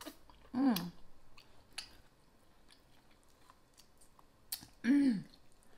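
A person eating with her mouth close to the microphone: soft chewing clicks and lip smacks, and two short hummed "mmm"s of enjoyment, one just after the start and one about five seconds in.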